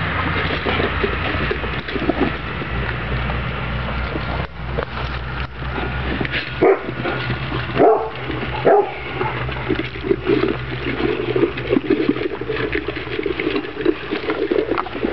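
Kuvasz puppies eating dry kibble: three short yelps around the middle, then several seconds of whining, over small crunching ticks and a steady low hum.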